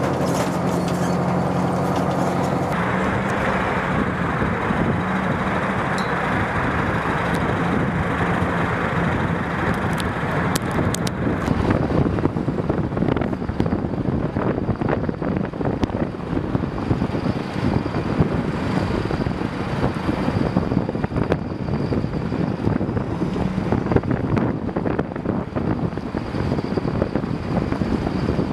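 M109 self-propelled howitzer's diesel engine running as the tracked vehicle creeps along steel railway flatcars. From about halfway through, its tracks clank and rattle over the deck in a dense run of knocks.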